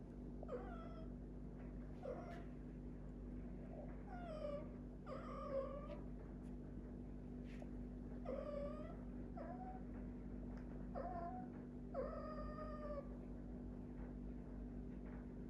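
A domestic cat calling repeatedly with about eight meow-like calls, mostly short, two of them drawn out. Each call rises and then falls in pitch.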